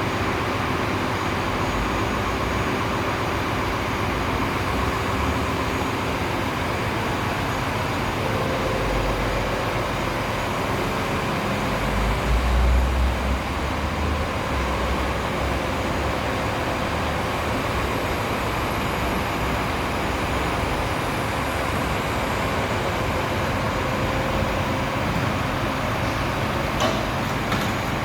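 Truck-mounted crane running steadily while hoisting a heavy 600 kg safe, its engine and lifting gear making a continuous mechanical noise. A deeper rumble swells briefly about halfway through.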